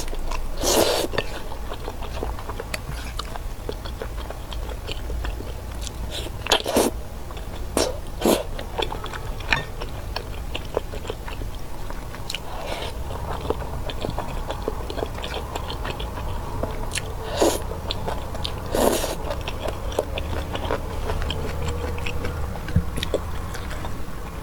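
Close-miked chewing and biting of thick, chewy garae-tteok rice cakes in tteokbokki sauce, with a few sharp louder mouth clicks scattered through.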